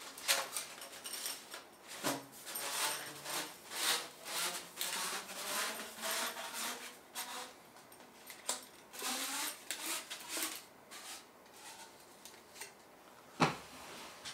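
A thin titanium chimney pipe and its metal rings being handled: irregular rubbing, scraping and light clinking of metal, with one sharp knock near the end.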